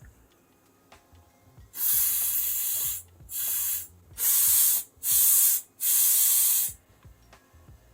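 Compressed-air duster blown in five short hissing blasts, each about half a second to a second long, into a PS4 controller's thumbstick module to clean it.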